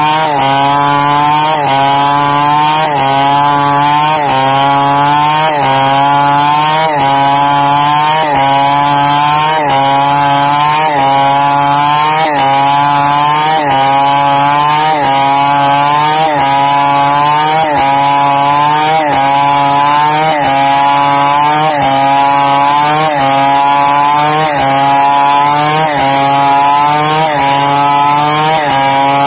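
Chainsaw ripping lengthwise through a squared log to cut it into boards, running under load without a break. Its pitch rises and drops about once a second.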